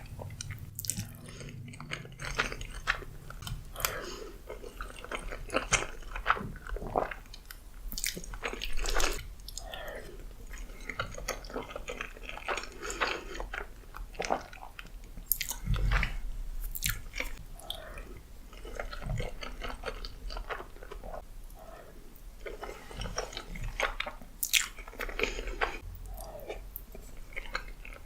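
Close-miked eating sounds of a person chewing spaghetti, with many short, irregular mouth clicks.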